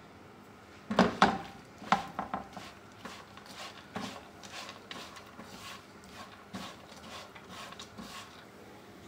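Spatula scraping and stirring coarsely crushed almonds, walnuts and pistachios roasting in a little ghee in a non-stick frying pan. It starts about a second in with two loud scrapes close together, then lighter strokes about every second.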